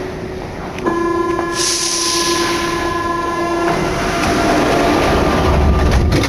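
Paris Métro line 14 MP89CA train: a steady warning tone sounds for about three seconds and a hiss joins it partway through. The train's low running rumble then builds toward the end.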